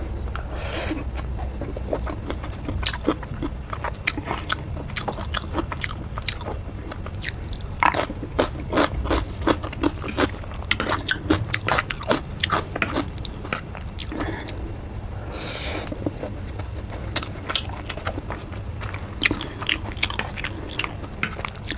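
Close-miked chewing and mouth sounds of a person eating egg chow mein noodles: many short, sharp clicks. A metal fork scrapes and clinks on the plate between mouthfuls.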